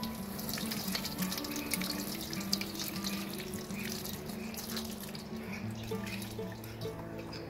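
Water poured from a plastic jug splashing over green chillies being rinsed by hand and pattering into a steel basin. The splashing thins out after about five seconds.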